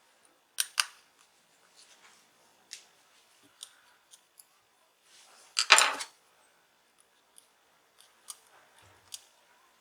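Scattered sharp clicks and taps of small tools and phone parts being handled on a work surface, with a louder, longer scraping clatter about six seconds in.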